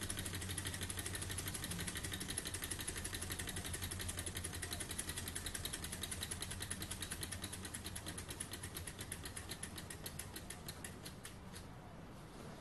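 Beam-type model Stirling engine running, its beam linkage and flywheel mechanism ticking rapidly and evenly. Over the last few seconds the ticks slow, space out and fade as the engine runs down, which happens when its hot end is not kept hot enough.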